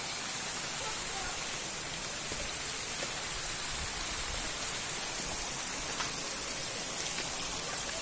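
Steady rushing of a mountain creek running over stones, with a few faint clicks of stones knocking underfoot.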